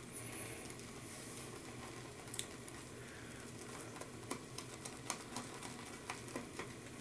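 Silvertip badger shaving brush working soap lather in a bowl: a faint wet crackle with scattered light clicks, more frequent in the second half.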